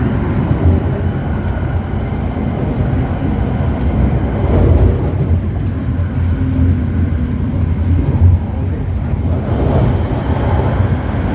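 Passenger train running, heard from inside the carriage: a steady low rumble with louder swells about halfway through and again near the end.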